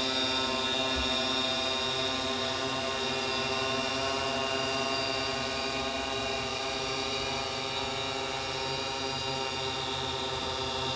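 Coaxial X8 octocopter hovering: its eight electric motors and propellers make a steady whine made of several pitched tones.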